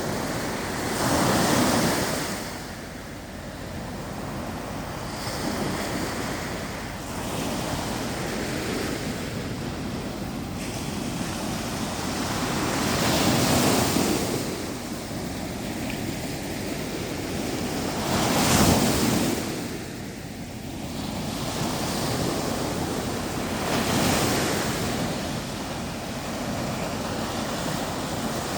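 Baltic Sea waves breaking on the shore, the surf swelling and falling back every few seconds, with the loudest wave a little past the middle. Wind buffets the microphone throughout.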